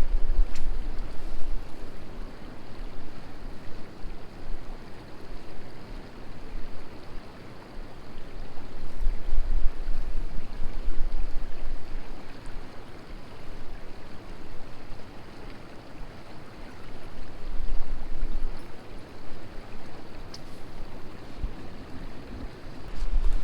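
Creek water rushing steadily, with gusts of wind buffeting the microphone in low rumbling surges at the start, around the middle and near the end.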